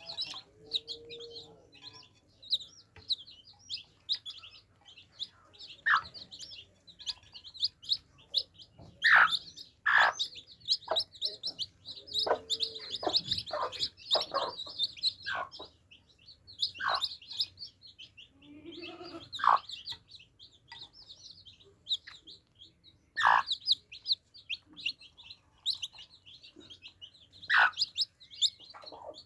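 Baby chicks peeping, a busy stream of fast, high chirps with louder falling peeps every second or two. A few short low clucks come through, about a second in, near the middle and around two-thirds of the way.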